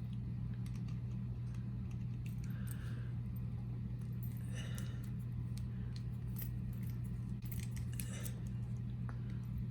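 Small metal clicks and light scrapes of a folding knife's parts and screws being handled with small tools during disassembly, over a steady low hum.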